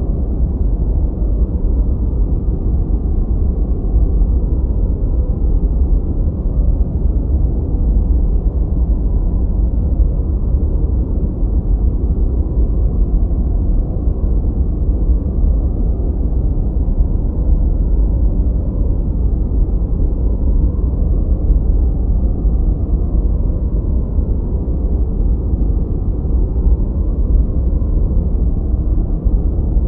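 Steady, gentle white-noise sleep sound with the highs cut off, leaving a deep, even rushing rumble that never changes.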